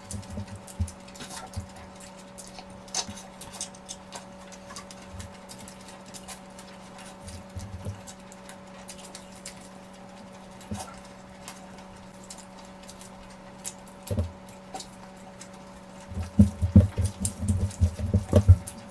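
A person eating close to the microphone: scattered wet clicks and soft chewing and lip-smacking sounds. Near the end they become a quick run of louder chewing sounds, all over a steady low hum.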